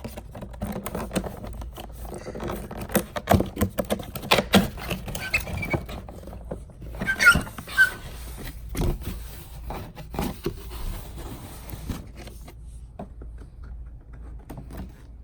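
Cardboard box and packaging being opened and handled: irregular scraping, rustling and sharp taps and knocks, busiest in the first half, with the loudest handling noise about seven seconds in.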